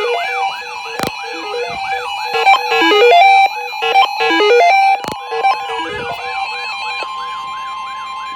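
Several electronic alarm sounds at once: a siren yelping up and down about three times a second over steady beeping tones, with a loud run of stepped beeps in the middle. About five seconds in, a steady alert tone joins, like the tone that precedes an emergency alert broadcast.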